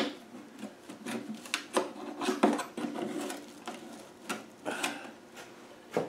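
A flat blade prying and scraping at the seam of a Land Rover 300Tdi heater box's sheet-metal casing: a sharp click at the start, then irregular scrapes and scratches as the side plate is worked loose.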